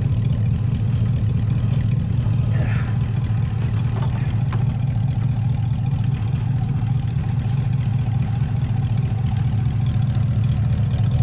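21-year-old Chevy Silverado pickup idling with a steady, deep exhaust rumble.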